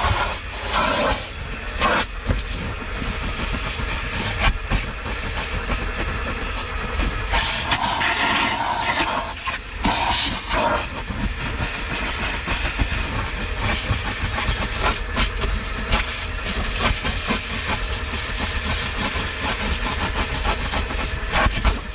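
A rag rubbing and scrubbing a surface with glass cleaner: a continuous rough rubbing hiss with scattered knocks and clicks, which stops abruptly at the end.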